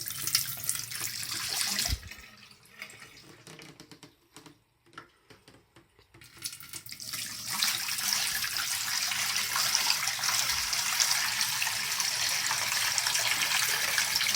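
Water collected in a dehumidifier's tank being poured out into a sink: a brief stretch of water noise at the start, then about seven seconds in a steady, full pour that keeps running.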